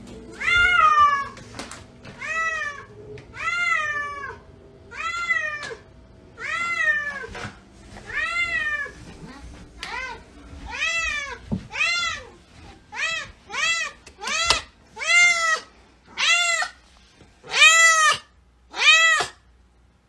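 Domestic cat meowing over and over, about seventeen drawn-out meows that each rise and fall in pitch. They come every second or two at first, then shorter and faster, about one a second, in the second half.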